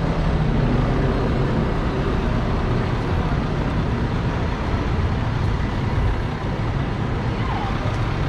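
Busy city street traffic: engines of heavy road vehicles and cars running steadily, with a continuous low engine sound.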